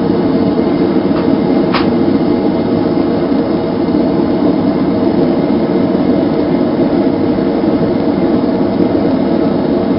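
Gas forge burner, running without a blower, giving a steady, loud rushing flame noise.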